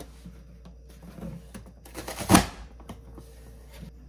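Manual vegetable chopper dicing an onion: the lid is pushed down once, forcing the onion through the dicing grid with one loud chop a little past halfway, among a few light plastic clicks and knocks.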